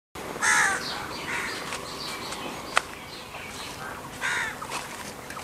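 Crows cawing: two loud harsh caws, one near the start and one about four seconds later, with fainter calls in between. A single sharp click comes a little past halfway.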